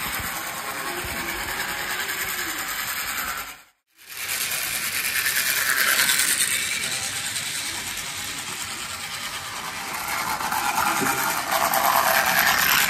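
Toy train running on toy track: a steady, fast mechanical rattle and clatter of its motor gearing and wheels, louder as it passes close by, once about six seconds in and again near the end. It breaks off briefly just before four seconds.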